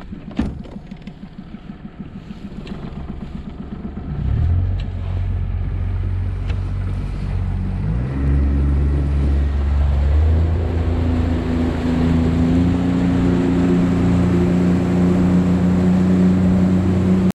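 Motorboat engine pulsing at low throttle, then opened up about four seconds in and again around eight seconds, settling into a steady high-speed run as the boat gets under way. A rushing hiss of wind and water builds as it speeds up.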